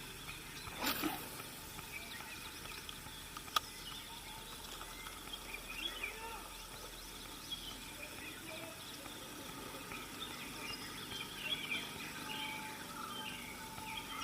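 Birds chirping faintly in many short, scattered calls that grow busier in the second half, over a soft outdoor hiss. A knock about a second in and a sharp click a few seconds later.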